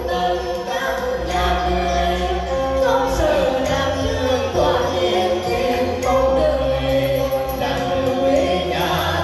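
Vocal song played over a backing track with a steady bass line, sung into microphones and amplified through loudspeakers.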